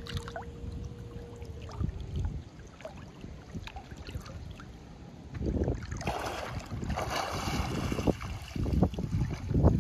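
Water sloshing and splashing around a person wading through a canal, louder from about halfway through as the wading gets heavier in shallower water, with wind buffeting the microphone.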